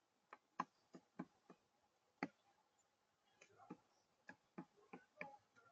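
Faint, sharp taps and clicks from doves, about a dozen at irregular intervals, with a few louder knocks among them.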